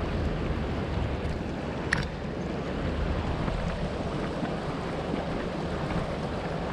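Steady rushing of wind on the microphone mixed with road noise from a bicycle riding a rough gravel mountain road, with one sharp click about two seconds in.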